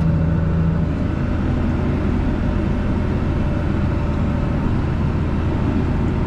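Case IH MXM 155 tractor's diesel engine running steadily under load while ploughing, heard from inside the cab. A steady drone, with a higher hum that fades about a second in.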